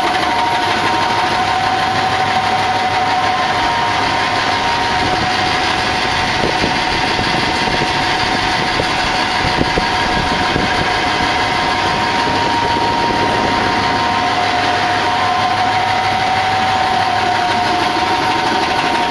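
GE 4HB/3 four-cylinder, three-stage reciprocating gas compressor, driven by an electric motor, running steadily: a dense, loud machinery din with two steady high tones whining over it.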